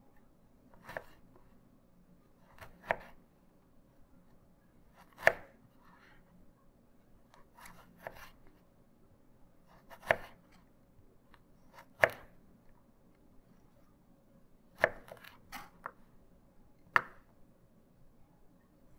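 Firebox folding chef knife slicing carrot into sticks, each cut ending in a sharp knock of the blade on the cutting board. There are about ten single, unhurried cuts, spaced unevenly one to three seconds apart.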